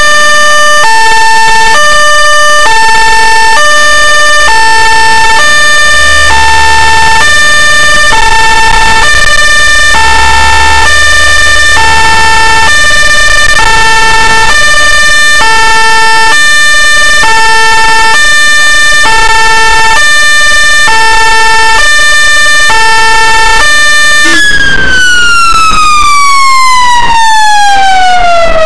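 Ambulance siren sounding loudly in an alternating two-tone hi-lo pattern, each tone about half a second, over a steady high tone. About 24 seconds in it switches to a wail that glides down in pitch and starts rising again near the end.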